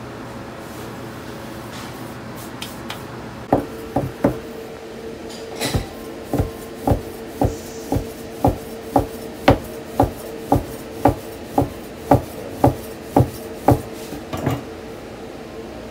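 Heavy udon noodle knife chopping down through folded udon dough onto a wooden board, knocks about two a second. A few knocks start a few seconds in, and the steady run stops shortly before the end.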